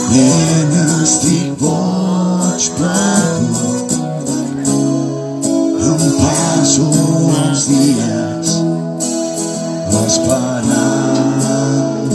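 Live acoustic guitar playing with a voice singing over it through a small PA.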